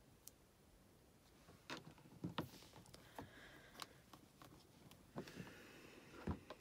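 Faint, scattered taps and clicks of rubber stamps being handled, lined up and set down on a stamp-positioning platform, the sharpest about two seconds in and near the end.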